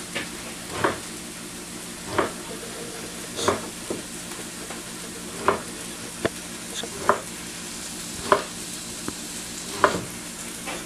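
Chef's knife chopping through stale whole wheat bread on a wooden cutting board, the blade knocking on the board about once a second, over the steady sizzle of vegetables frying in a skillet on high heat.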